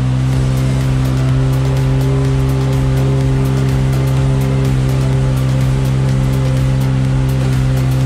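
Jet ski engine running at steady high throttle, holding one even pitch, with water rushing off the hull.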